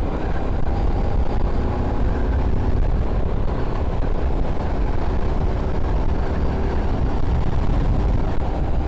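Royal Enfield Continental GT 650's 648 cc parallel-twin engine running steadily while riding at cruising pace, mixed with a heavy low wind rumble on the helmet-mounted microphone.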